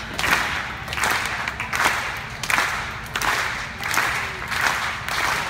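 Audience clapping in a steady rhythm, a swell of claps about every three-quarters of a second.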